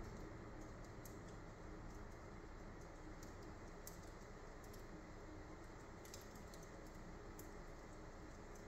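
Wood fire burning low in a fireplace grate, giving faint, irregular crackles and ticks, about one or two a second, over a steady background hiss.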